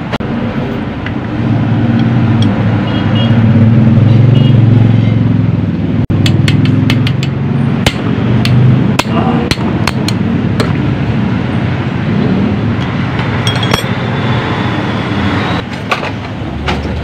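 Metal clinking and tapping from carburetor parts and hand tools: a run of sharp clicks about six seconds in and again near the end, over a low engine rumble that swells in the first few seconds.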